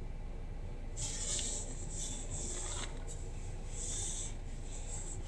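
Soft rubbing and rustling of a hand handling a tablet and brushing against denim, in several short patches, over a faint low rumble.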